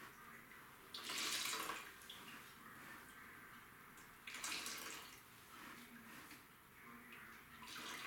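Mop head being worked and wrung in a bucket of water: two splashing swishes, about a second in and again about four and a half seconds in, with faint water sounds between.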